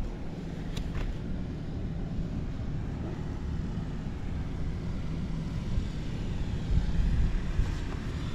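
Honda Squash (AB11) scooter engine running at a steady, even speed with no abnormal noise: a quiet, healthy-sounding engine.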